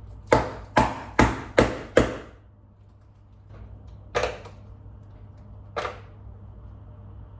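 Terry's chocolate orange being knocked against a hard kitchen surface to break it into segments: five sharp knocks in quick succession, then two more single knocks a couple of seconds apart.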